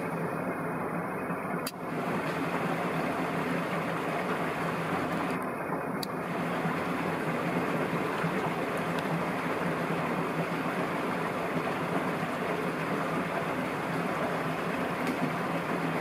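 Steady rushing ambient noise with a faint low hum underneath and no distinct calls.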